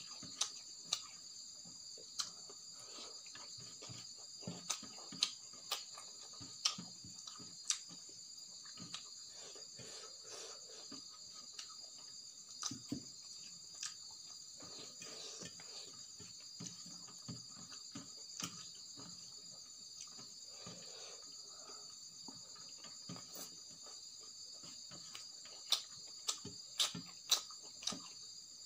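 Eating by hand: fingers mixing rice and curry on a steel plate, with irregular wet mouth clicks and smacks of chewing, bunched in flurries near the start and near the end. A steady high-pitched drone runs underneath.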